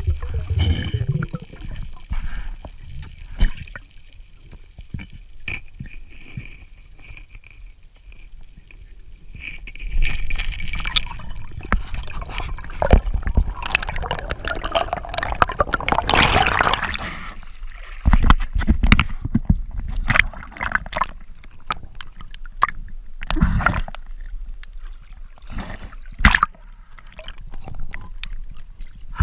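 Underwater noise: water gurgling and sloshing with scattered sharp clicks and knocks, and a louder rush of bubbling about halfway through.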